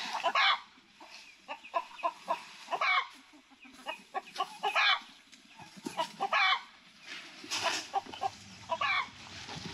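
Chickens clucking, a string of short separate calls with quick rises and falls in pitch, scattered every second or so.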